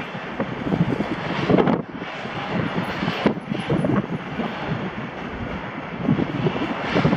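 Container freight train rolling through the station: a steady rumble of wagons, mixed with strong wind gusting against the microphone.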